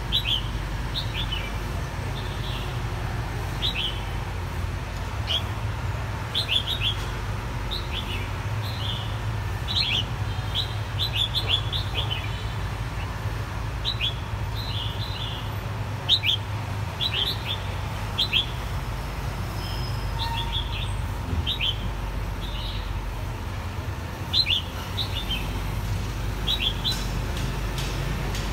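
White-cheeked bulbul calling: short, sharp chirping notes in quick clusters every second or so, over a steady low rumble.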